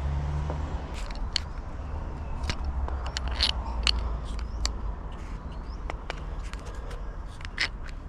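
Scattered clicks, taps and scrapes of bait-board fittings being handled and pushed together, over a low steady rumble.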